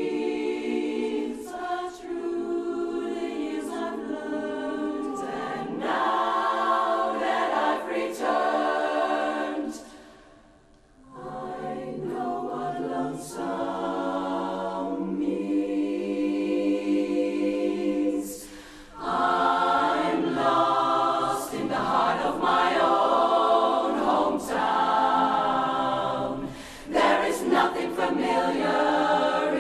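Women's barbershop chorus singing a cappella in close four-part harmony. The sound drops almost to silence for a moment about ten seconds in, with two shorter breaks later on.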